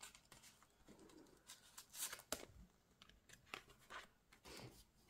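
Faint rustling and a few light clicks of paper game sheets being handled, strongest about two seconds in and again near the end.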